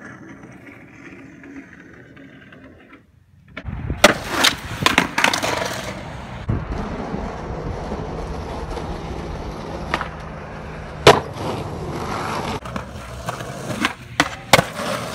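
Skateboard wheels rolling on pavement, broken by sharp clacks of the board popping and landing several times. Near the end the board slaps down twice in quick succession after a jump down a set of stairs.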